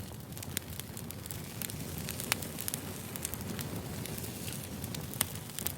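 Crackling fire: a steady low rumble with frequent sharp, irregular pops and snaps of burning wood, a couple of louder pops standing out.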